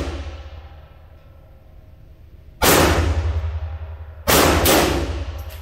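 Three gunshots echoing through an indoor shooting range's concrete lanes: one about two and a half seconds in, then two in quick succession near the end. The echo of an earlier shot is dying away at the start.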